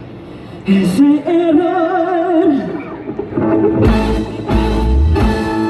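Live band playing a Spanish-language song with a singer. The singer holds one long note with vibrato, and heavy low drum and bass beats come in during the second half.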